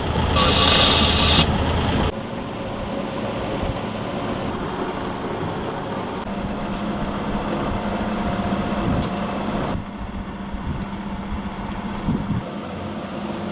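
Sailing yacht's engine running steadily under way, a low steady hum. For the first second and a half a louder hiss lies over it and cuts off suddenly.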